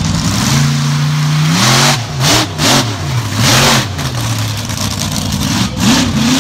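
Monster truck engine revving hard in repeated blips, its pitch swinging up and down several times with harsh surges of exhaust noise. It then settles to a steadier run and climbs again near the end.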